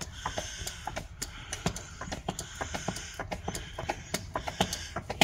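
Hand pump on a bottle of transmission fluid being worked to push fluid up a hose into a dual-clutch gearbox, giving rapid, irregular clicking, several clicks a second.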